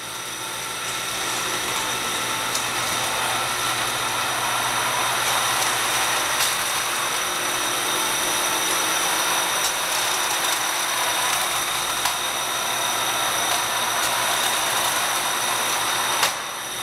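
Powered roller conveyor running: a steady mechanical whir with a low hum from the drive and turning rollers as small electronic units ride along it. It stops abruptly near the end.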